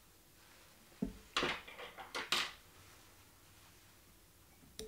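A few faint clicks and rustles, bunched together about a second in, from fly-tying tools and thread being handled at the vise.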